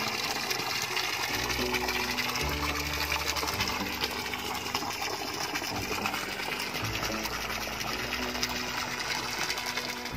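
Stream of water pouring from a pipe into a tarp-lined pond, splashing steadily at the surface, with background music underneath.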